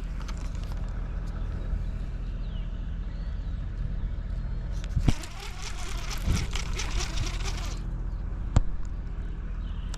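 Steady low engine hum, with a rush of hiss for about three seconds midway and a few sharp clicks.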